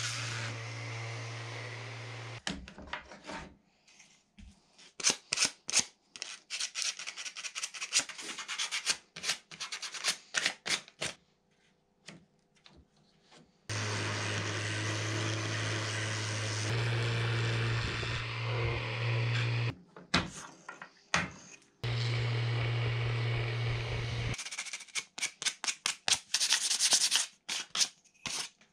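Makita 18V cordless random orbital sander running against wood in three stretches: at the start, for several seconds about halfway through, and briefly later. Between these come runs of quick back-and-forth strokes as a small piece of wood is sanded by hand on sandpaper.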